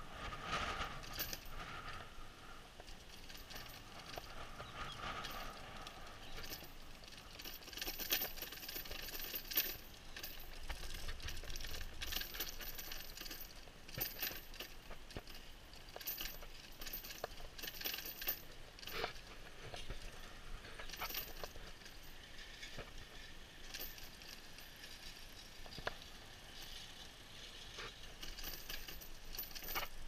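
A moving bicycle rattling and clinking over bumps in the path, with many scattered sharp clicks over a steady wash of road and wind noise.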